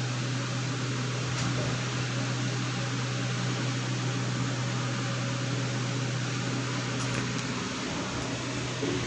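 Steady mechanical hum, like a running fan: a constant low drone under an even hiss.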